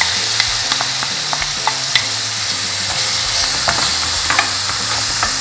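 Processed onion sizzling steadily in a spoonful of hot oil in a frying pan, freshly added, with scattered crackles and clicks as a wooden spoon stirs it.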